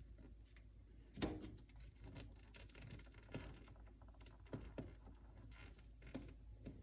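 Faint, scattered taps and scratches of a juvenile raccoon's claws on window glass and frame as it climbs, with one louder tap about a second in.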